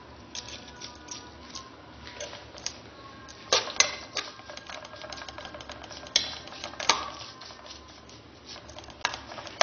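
Metal spoon stirring fried onions in a metal pot, scraping and clattering against the pot in quick uneven clicks, with the loudest clanks a few seconds in and again near seven seconds.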